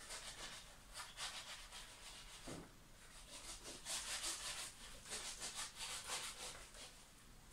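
Board eraser rubbed quickly back and forth across a whiteboard, wiping off marker writing: faint, repeated scrubbing strokes.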